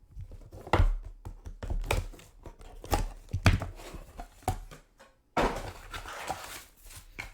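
Trading cards and packs being handled on a table: a series of knocks and taps, then a stretch of crinkling and rustling of packaging from about five and a half seconds in.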